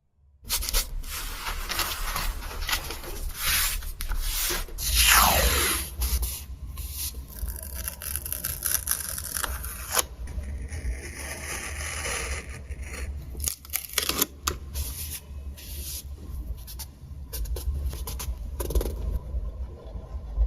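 Paper and stickers being handled, scraped and rubbed down on a journal page, a run of irregular rustles and strokes, with one long swish falling in pitch about five seconds in. A low steady hum sits under it.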